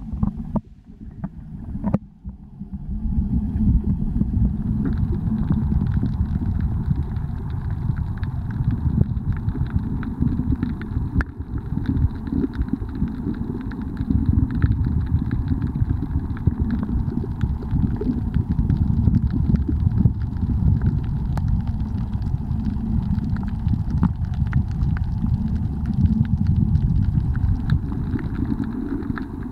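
Muffled underwater rumble and water movement, heard through a submerged waterproof compact camera's sealed body, with scattered faint clicks. The rumble drops away briefly about a second in, then returns.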